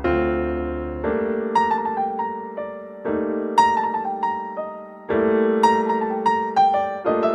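Slow piano music: chords struck every second or two under a melody of single notes.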